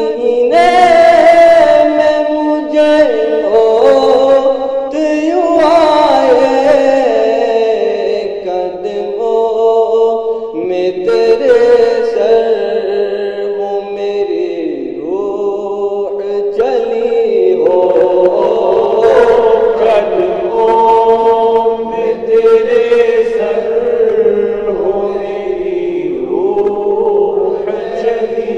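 Group of voices chanting an Urdu naat, a melody rising and falling over a long held note that runs beneath it.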